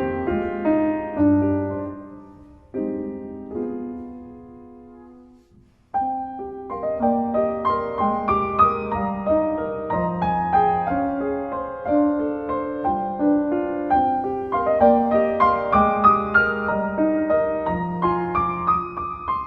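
Solo piano music. The notes die away over the first few seconds to near silence, then a new, busier passage starts abruptly about six seconds in.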